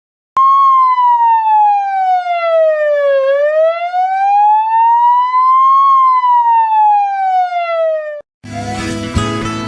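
A loud siren-like wailing tone that slides slowly down in pitch, back up, and down again, about three seconds per sweep, starting and stopping abruptly. Just after it cuts off, guitar music begins.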